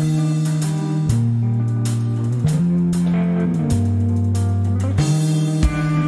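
Live band playing an instrumental intro: electric guitar chords over a bass line that moves to a new held note about every second and a quarter, with drums keeping time.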